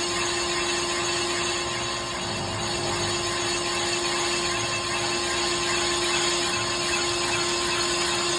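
Colchester lathe running with a trepanning tool cutting into a cast trailer wheel hub: a steady machining noise with one held mid-pitched tone.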